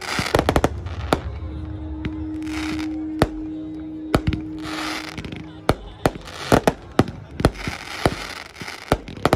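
Fireworks going off: many sharp bangs and cracks at irregular intervals, some in quick clusters and loudest in the second half, with hissing between them and a steady low tone for a few seconds in the middle.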